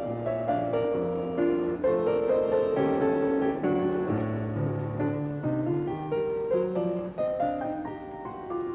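Background instrumental music: a piano playing a melody over changing chords.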